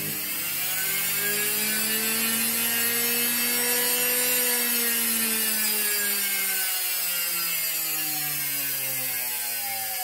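Washing-machine brushed universal motor spinning on a TDA1085C speed-controller board: a steady whine with many overtones. Its pitch climbs slightly over the first four seconds, then slowly sinks as the motor speed eases off.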